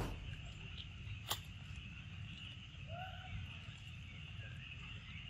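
Steady high-pitched chorus of insects, with a sharp click about a second in and a brief faint chirp near the middle.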